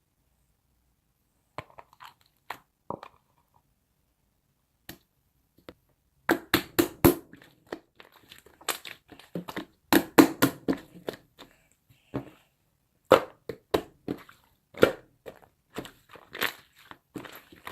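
Irregular bursts of crunching and crackling, a few scattered clicks at first, then dense clusters of sharp crackles from about six seconds in.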